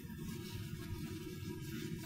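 Quiet room tone: a steady low hum with faint hiss and no distinct events.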